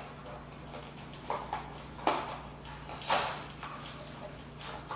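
Packaging of a small Marvel blind-box toy being opened by hand: several short rustles and tears of the wrapping.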